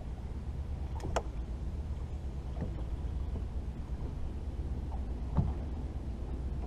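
Bass boat sitting on the water: a steady low rumble with a few light knocks and clicks, a sharp one about a second in and the loudest about five seconds in.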